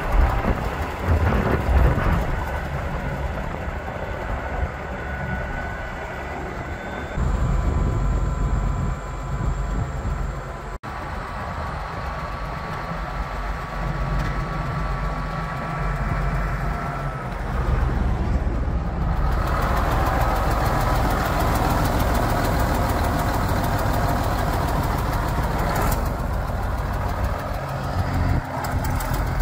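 1995 John Deere 8400 tractor's six-cylinder diesel engine running with a steady low drone. It gets louder about seven seconds in and again after about nineteen seconds, and the sound breaks off abruptly for an instant about eleven seconds in.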